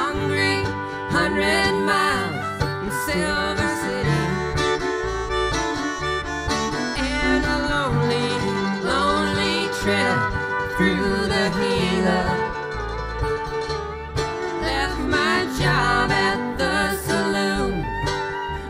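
Live acoustic string band playing an instrumental break in a country-folk song: strummed guitar, banjo and bass, with gliding melody lines over them.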